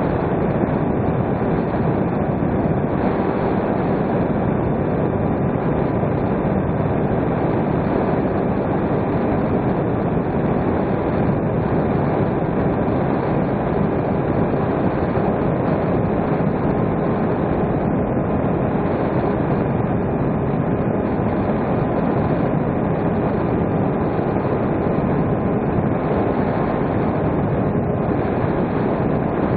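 Steady rush of wind and the drone of an electric motor and propeller heard from a camera aboard a small RC plane in cruise, with a faint steady hum. It stays even throughout, with no changes in throttle.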